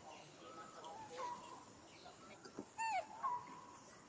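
Faint, short, high-pitched animal calls: a few brief squeaks and one louder arched call about three seconds in.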